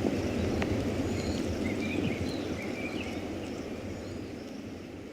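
Steady wind and rain noise of the African savanna with a few short bird chirps in the middle, the whole soundscape fading out gradually.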